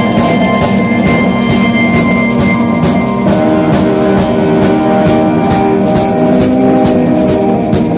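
Live instrumental jazz-rock band playing. A drum kit keeps steady cymbal strokes under sustained held notes, and the chord changes about three seconds in.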